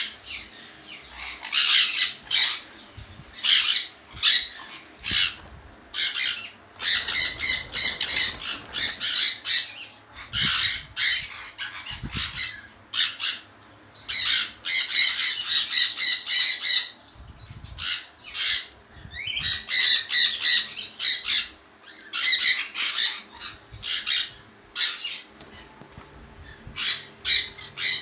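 Caged lovebirds and sun conures squawking and screeching, harsh calls following one another in quick clusters with only brief pauses.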